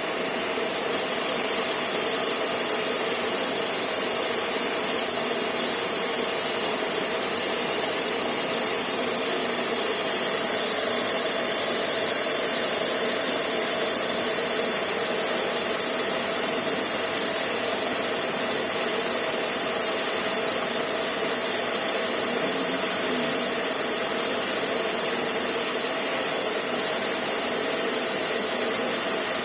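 Car's air-conditioning compressor running with its clutch engaged while the engine idles: a steady, unchanging mechanical whir with a high-pitched hiss.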